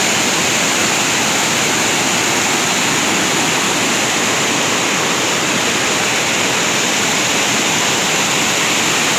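Waterfall: falling water, a loud steady rushing noise with no breaks.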